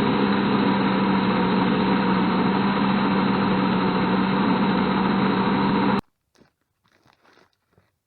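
Battery-powered Ryobi electric chainsaw running steadily with a constant motor whine while cutting logs. It cuts off abruptly about six seconds in, followed by a few faint knocks.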